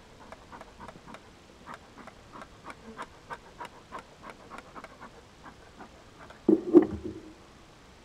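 Bee smoker's bellows squeezed rapidly, a quick series of short puffs of air, about three or four a second. A louder clunk comes near the end.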